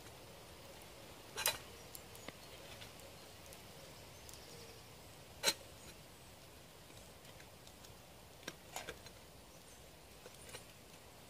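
Metal camping pot with a wire bail handle being hung on a wooden pot hanger: a few sharp clinks of metal, the loudest midway and two close together near the end, over a faint steady outdoor hiss.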